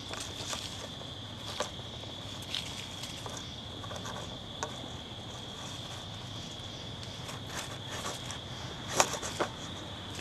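A steady high-pitched insect trill runs on, with scattered rustles and clicks as a striped skunk forages in dry leaf litter. The loudest cluster of clicks comes near the end.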